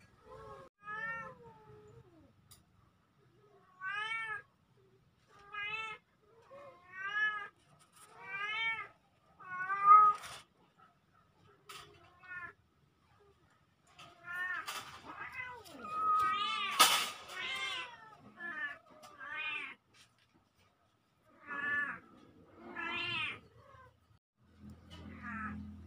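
Kittens mewing again and again: short high calls that each rise and fall in pitch, coming in runs with short pauses, the loudest about two-thirds of the way in. A few faint clicks fall between the calls.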